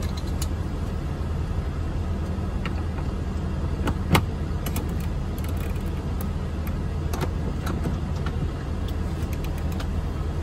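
Steady low engine hum, with scattered light metal clicks and one sharp knock about four seconds in as an ICON ratchet on a long extension is fitted onto a wall-mounted Snap-on torque tester.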